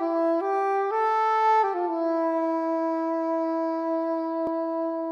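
Title music played by a single wind instrument: a short phrase of a few stepping notes, then one long held note from about two seconds in.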